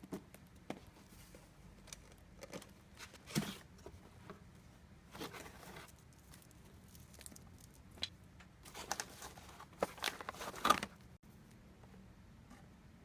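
Scattered handling noises: rustles, crinkles and small clicks of varying length, busiest and loudest about nine to eleven seconds in.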